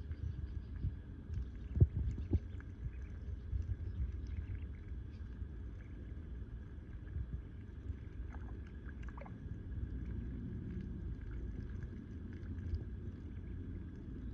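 Ducklings dabbling in a shallow muddy puddle: small wet splashes and bill clicks over a steady low rumble, with a sharper knock about two seconds in and a few faint peeps around eight to nine seconds in.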